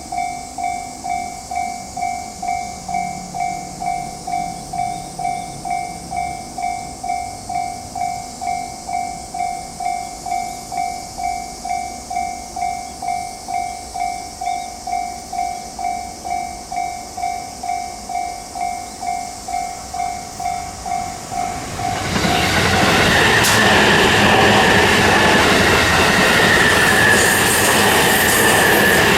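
Japanese level-crossing warning bell ringing steadily, one pulsed tone just under twice a second. About twenty-two seconds in, an E257-series limited express electric train reaches the crossing and passes, its loud running noise drowning out the bell.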